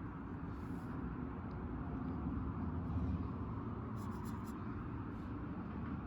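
Paintbrush strokes on paper, faint and scratchy, with a few short strokes around a second in and again about four seconds in, over a steady low background rumble.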